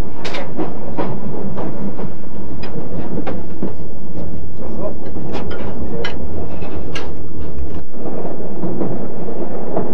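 Train running with a steady low rumble, heard from inside a dining car, with irregular clinks of cutlery and crockery. The rumble drops off about eight seconds in.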